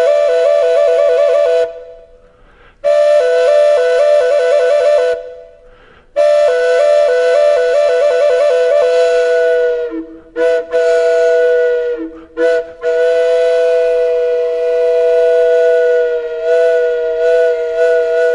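Flute music: a melody with rapid trills, played in short phrases separated by brief pauses, giving way to longer held notes about ten seconds in.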